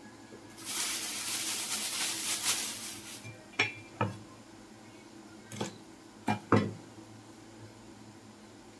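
Knife knocking on a wooden chopping board: five sharp knocks over about three seconds, after a couple of seconds of crinkly rustling at the start.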